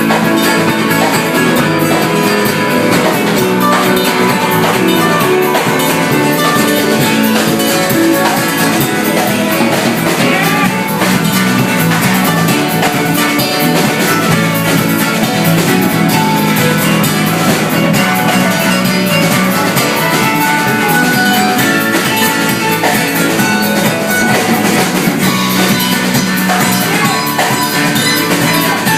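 Live band playing an instrumental passage of a song, steady and full throughout.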